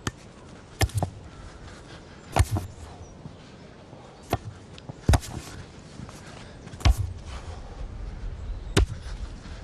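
A football being volleyed back and forth between two players: a series of sharp kicks on the ball, one every second or two, with a few softer touches in between.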